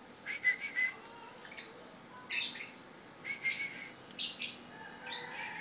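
Javan myna giving a run of short, separate chirps and calls, about half a dozen brief ones spread through the few seconds.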